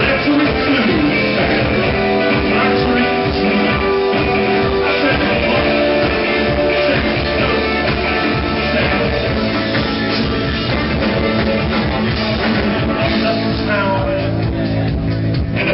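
Live rock band playing with electric guitars and a drum kit. The music shifts to a heavier low end near the end.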